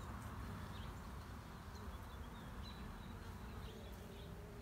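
Honey bees buzzing steadily from an open hive and a brood frame covered in bees.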